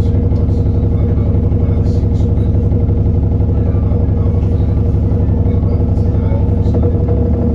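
Diesel engine of an Alexander Dennis Enviro400 Trident double-decker bus running, a loud, steady low drone with a few faint light rattles.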